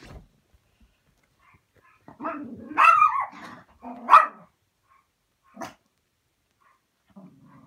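Newborn Maltese puppies crying: a run of cries about two seconds in, a sharp, loud cry about four seconds in and a short one a little later. They are distress cries of puppies that are cold and away from their mother.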